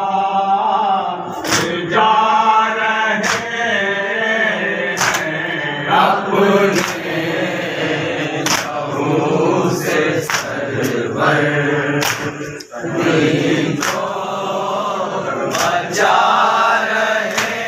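A group of men chanting a Shia Muharram nauha (mourning lament) together, with sharp chest-beating slaps (matam) about every second or two keeping time.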